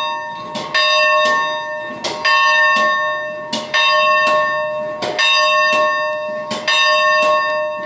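Cast-iron school bell swinging on its yoke and being rung by rope. The clapper strikes about every second and a half, sometimes twice in quick succession, and the bell's ring carries on between strikes.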